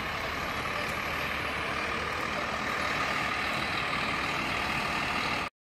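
Scania K360 coach's rear-mounted diesel engine running steadily as the bus manoeuvres slowly. The sound cuts off suddenly near the end.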